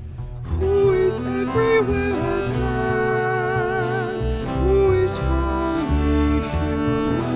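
A small acoustic ensemble playing a carol: viola, acoustic guitar and double bass, with a woman singing the melody. A single held note gives way to the full ensemble about half a second in.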